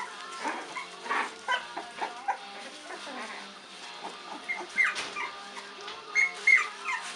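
Olde English Bulldogge puppy making short, high, squeaky whimpers and snuffles as it works up to a sneeze, with one short sharp burst about five seconds in. Faint background music underneath.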